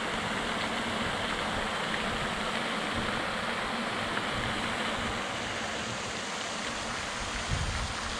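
Wind buffeting the microphone outdoors: a steady rush with an uneven low rumble beneath it.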